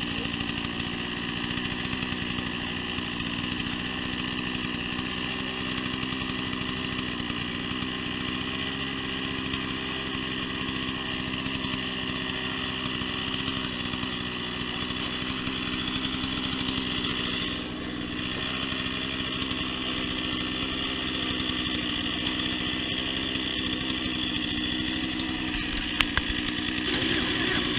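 A small engine running steadily at a constant speed. Near the end comes a single sharp knock.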